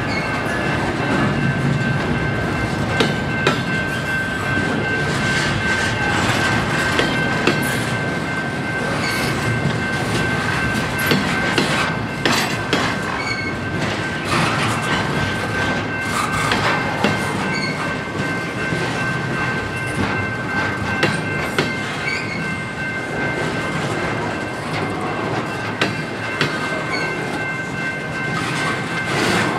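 Double-stack intermodal freight train's well cars rolling past: a steady rumble with irregular clicks and clanks from the wheels over the rail joints, and a thin steady high squeal running throughout.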